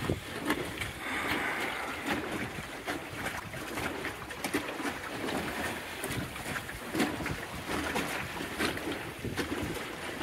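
A Welsford Navigator sailboat running downwind under sail, water swishing along its hull, with wind buffeting the microphone. Scattered short knocks and splashes come through the steady rush.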